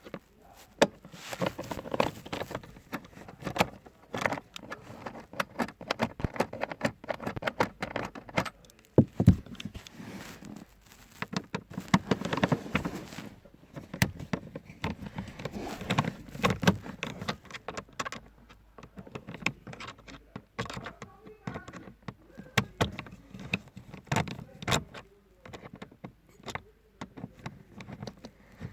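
Irregular clicks, knocks and rustling of hands working on car parts, as in taking off panels and handling the filter housing.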